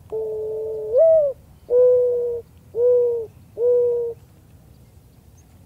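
Mourning dove singing its song: a long, low coo that slurs up and falls back about a second in, followed by three level coos about a second apart.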